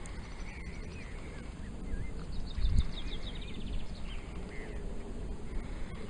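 Wind rumbling on the microphone, with one strong gust a little under three seconds in. Birds are calling over it: a quick trill of repeated high notes and several short chirps.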